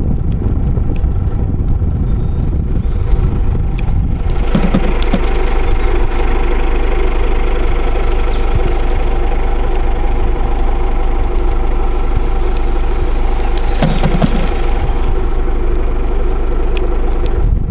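A vehicle engine idling steadily, its hum coming in about four seconds in, over a low rumble on the microphone. Sharp knocks come about four and a half seconds in and again near fourteen seconds.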